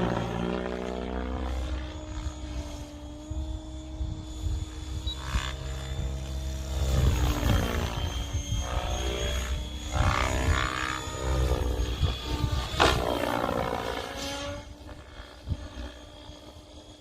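Mikado Logo 690 electric RC helicopter flying, its rotor and motor hum sweeping down and up in pitch several times as it passes and manoeuvres. The sound is smooth, with no engine rasp.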